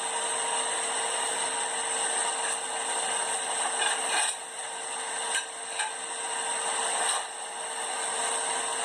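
Blacksmith's forge running steadily, a continuous rushing noise with a steady hum, while a piece of tong iron heats in the fire; only a few faint ticks, no hammer blows.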